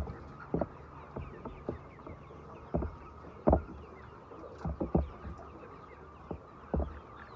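Chickens clucking and chirping, with irregular dull knocks and thumps, the loudest about three and a half seconds in.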